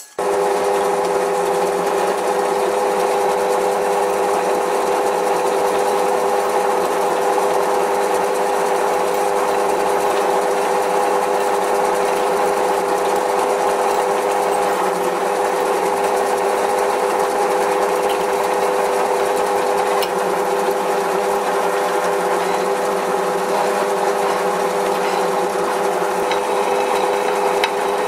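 Drill press running steadily with a small twist drill cutting into a metal block: a steady machine hum with several held tones over the noise of the cut.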